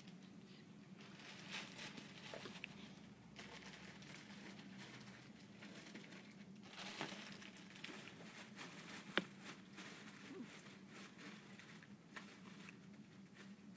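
Newborn baby hiccuping softly now and then, with one sharper hiccup about nine seconds in, over faint rustling of fabric.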